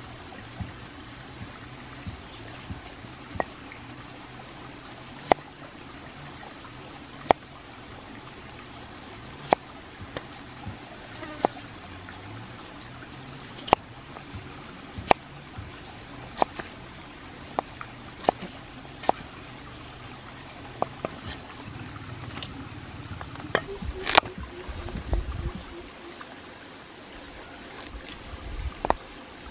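Cleaver knocking on a wooden chopping board as vegetables are sliced: single sharp chops every second or two, one louder chop late on. A steady high insect drone runs behind.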